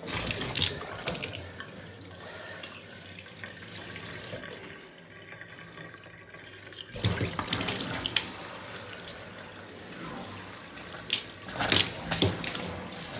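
A newly fitted kitchen mixer tap is turned on about halfway through, and water starts pouring steadily into a stainless steel sink. A few sharp clicks come near the end.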